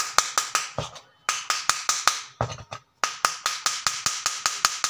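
Rapid, even knocks on an LED bulb's plastic diffuser dome, about six a second, each with a short ringing tone, pausing briefly twice: the dome being knocked to loosen it from the base.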